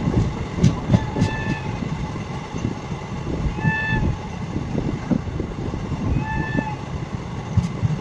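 Passenger train running, heard from one of its coaches: a low rumble of wheels on rail with irregular knocks and clicks. The train's horn gives three short toots, about a second in, near the middle and again about two and a half seconds later.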